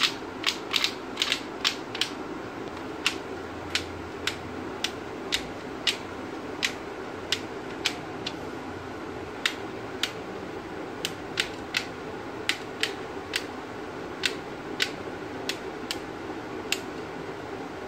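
Magnetic stylus drawing on a Magpad magnetic bead board, pulling small metal beads up into the holes one after another; each bead snaps into place with a sharp click, at irregular spacing of about one or two a second, over a steady low background noise.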